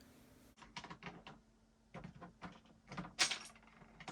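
Small plastic building bricks clicking and clattering as they are handled and fitted together: a run of light knocks, the loudest about three seconds in.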